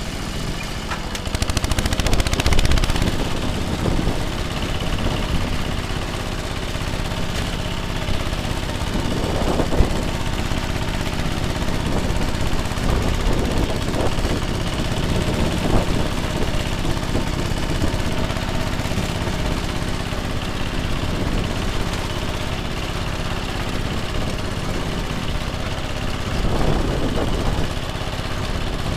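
Zubr 10 hp walk-behind tractor's engine running steadily while its rotary tiller works the soil, getting louder a few times.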